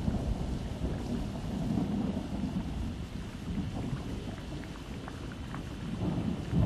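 Steady rain with a low rumble of thunder that swells about two seconds in and then eases off.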